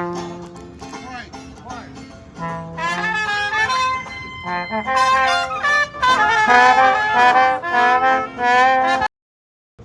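Brass band playing a jazzy tune, trumpets and trombones to the fore; the music cuts off suddenly about nine seconds in.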